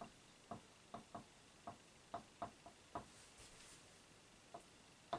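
Dry-erase marker writing on a whiteboard: faint, irregular taps of the tip against the board, with a soft scratching stroke a little after the middle.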